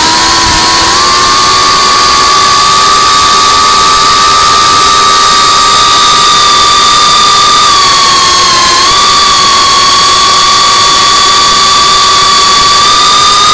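FPV quadcopter's brushless motors and propellers whining at a steady throttle, heard from the quad's own camera over a loud rushing hiss of air. The pitch dips briefly about nine seconds in and then settles again.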